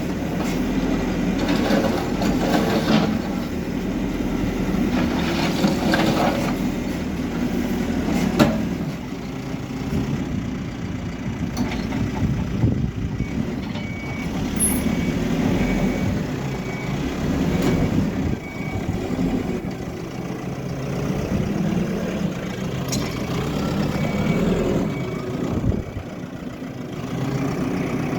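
HIDROMEK K4 Alpha backhoe loader's diesel engine running under load while demolishing a building, with sharp knocks and crashes of rubble in the first eight seconds or so. A high reversing alarm beeps repeatedly for several seconds midway and again briefly near the end.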